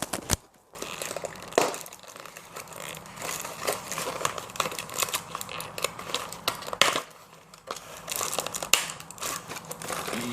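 Lens packaging being handled and opened: irregular crinkling and rustling with sharp crackles and clicks.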